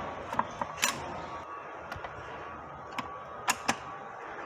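Steel shift forks and gear shafts of an Acura RSX six-speed manual transmission clinking against each other and the case as they are worked into place: a handful of sharp, scattered metal clicks, the loudest about a second in and about three and a half seconds in, over a faint steady hum.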